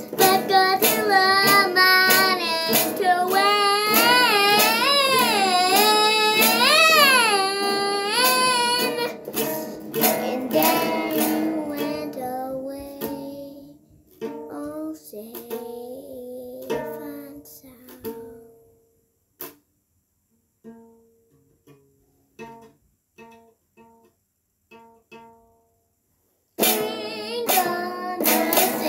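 A song with singing over strummed guitar. It thins out after about ten seconds into sparse, quieter notes with short gaps, and the full singing and guitar come back near the end.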